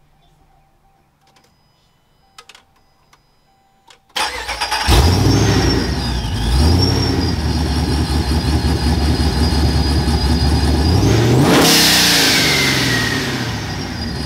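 A Dodge Ram R/T's cammed, TorqStorm-supercharged Hemi V8 cranks and starts about four seconds in, then runs at a steady idle. Near the end it is revved once, with a sharp rush of air as the revs drop and a high whistle falling away behind it. A few faint clicks come before the start.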